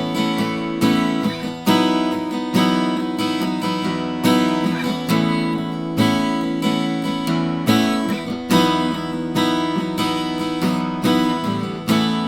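Small-bodied Chibson L-00 acoustic guitar, a Chinese copy of the Gibson L-00, with chords strummed in a steady rhythm and each chord left to ring.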